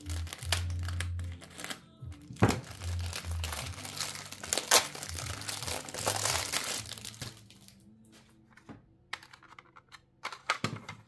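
Plastic wrap crinkling and tearing as it is snipped with small scissors and peeled off a plastic diamond-painting tray case, for about seven seconds. A few light plastic clicks follow near the end as the trays are handled.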